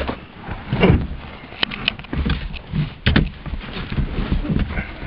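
Irregular knocks, clicks and rustling from someone moving about at the driver's seat of an old Toyota Corolla, with the engine not running.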